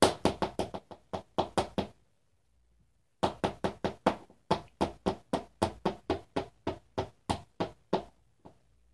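Toy ponies knocked together in a run of hard clicks made to sound like clapping: a fast run of about five a second, a pause of about a second, then a longer steady run at about four a second.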